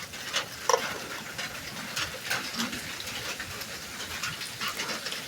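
Burger patties sizzling and crackling in a grilled cheese machine, a steady hiss of spitting grease.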